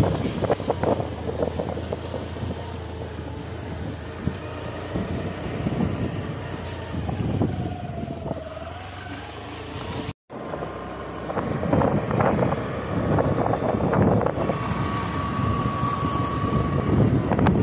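Wind buffeting and rumbling on a phone's microphone while riding along a dirt track, in irregular gusts. The sound cuts out for an instant about ten seconds in, then the same rough wind noise carries on.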